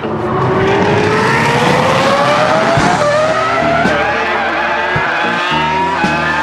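Ferrari F2004's V10 Formula 1 engine at high revs, its pitch climbing steadily as the car accelerates.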